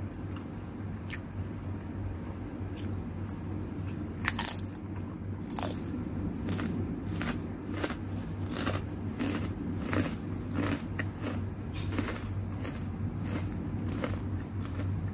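Crisp kerupuk cracker being bitten and chewed: two loud sharp bites about four and a half and five and a half seconds in, then steady crunching as it is chewed, about two crunches a second.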